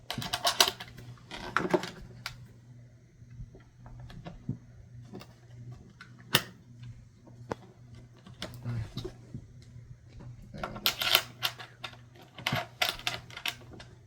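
Padlocks being fitted through the lock holes of a Pelican Vault hard plastic case and snapped shut: a run of sharp metal-on-plastic clicks and rattles, bunched in the first couple of seconds, scattered through the middle, and in a busier flurry near the end.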